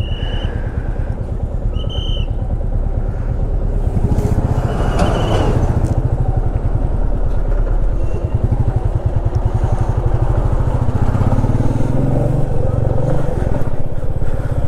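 Motorcycle engine running while the bike is ridden, its firing pulse steady. It gets louder about four seconds in, and the revs rise briefly near the end.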